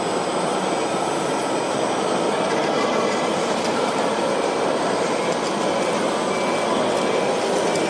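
Radio-controlled model construction vehicles running, a steady whirring drone of small motors and gears, with short electronic beeps repeating about once a second from a few seconds in, like a truck's reversing beeper.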